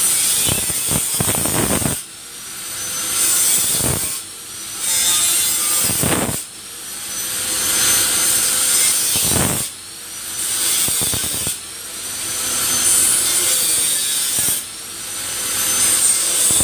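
Angle grinder cutting into the steel of a bus's front fender, a loud high-pitched grinding whine. It comes in passes a couple of seconds long, the level dropping sharply between passes and building up again.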